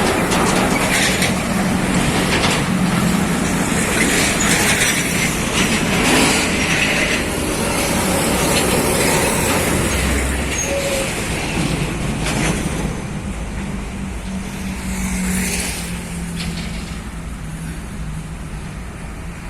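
Heavy diesel trucks driving past: engines running under load with tyre and road noise, easing off a little over the last few seconds.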